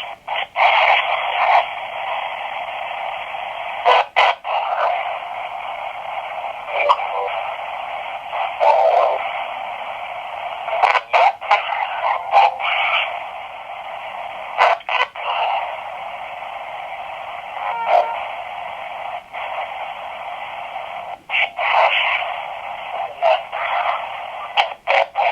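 S Box spirit box sweeping radio static: a steady hiss through a small speaker, broken many times by sharp clicks and short dropouts as it jumps between stations.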